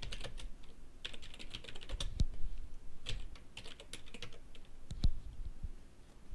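Computer keyboard typing: quick runs of key clicks with short pauses between them, and one heavier keystroke about five seconds in.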